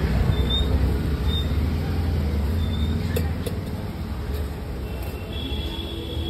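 Steel spatula scraping chickpeas across a large iron griddle, with a few short squeaks and clicks, over a steady low rumble of engines. A steady high tone starts about five seconds in.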